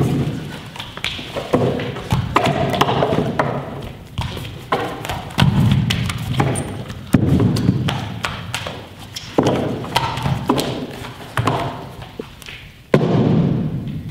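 Irregular heavy thumps and knocks of bare feet and bodies landing on a wooden table and a stage floor, a dozen or so in a few seconds, with lighter taps and slaps between them.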